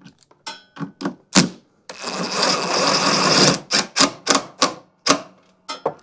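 Cordless drill/driver running for about a second and a half, starting about two seconds in, as it drives a screw. Sharp clicks and taps of handling come before and after it.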